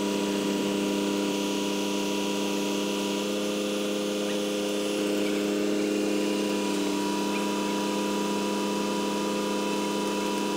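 A large engine running steadily at raised revs, giving an even, multi-pitched drone.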